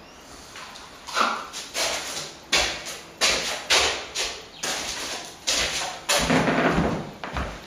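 Steel plastering trowel scraping wet corner cement across a plaster wall in a run of short, sharp strokes, with a longer scrape near the end.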